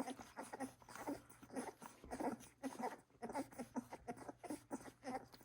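Welsh Springer Spaniel puppies, 17 days old, making small squeaks and grunts while nursing, many short sounds in quick, irregular succession.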